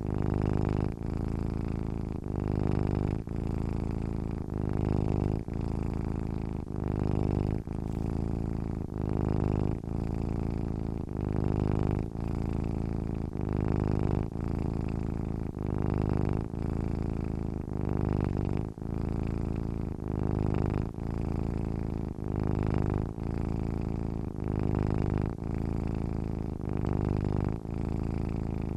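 Domestic cat purring steadily while asleep, the low purr swelling and easing with each breath, about once every two seconds.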